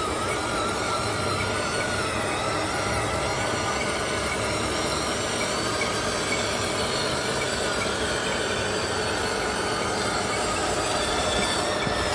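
Radio-controlled construction truck's electric motor and gears running, a steady whine that wavers slightly in pitch.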